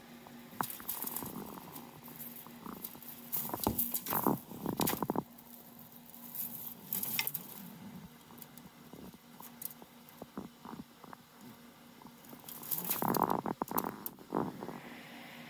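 Mini Rex rabbit scrabbling in hay and on plastic cage flooring: bursts of rustling and scratching about four seconds in and again near the end, with small clicks of claws between.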